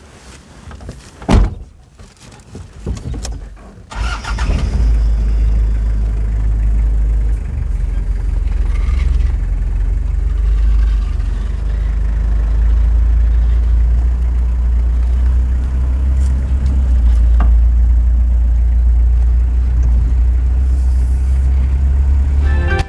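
Vehicle driving on a dirt track, heard from inside the cab: a loud, steady low rumble that sets in about four seconds in. Before it, a few scattered knocks, the loudest a sharp knock about a second and a half in.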